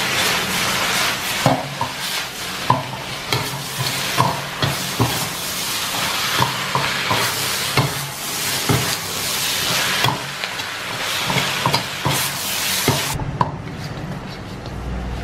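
Chicken and green capsicum in a thick sauce sizzling in an iron wok over a gas flame, stir-fried with a metal ladle that knocks and scrapes against the wok every second or so. About two seconds before the end the sizzling drops away sharply, leaving the ladle knocks.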